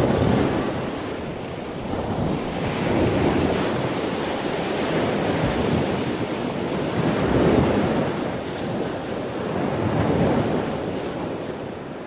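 Waves washing, with wind blowing across the microphone; the noise swells and eases every few seconds.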